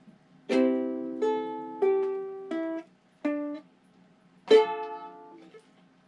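Ukulele strummed by a beginner: six chords, each left to ring and fade, changing chord between strums with uneven gaps and a longer pause before the last, loudest strum.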